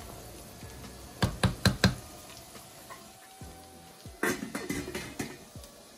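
Kitchen knocks and clatter: four quick, sharp knocks a little over a second in, then a run of lighter clattering about four seconds in, over faint background music.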